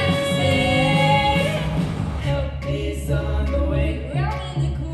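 Female vocal trio singing together into handheld microphones, amplified through the stage sound system.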